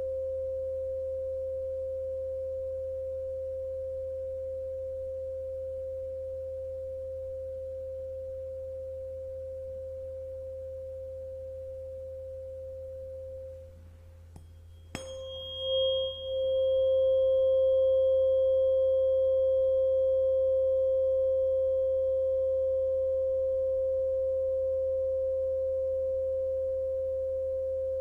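A 528 Hz tuning fork ringing as a pure, steady tone that slowly fades. About halfway through it dies down, then is struck again with a sharp click; it rings back loud, with a brief high metallic overtone, and slowly fades once more.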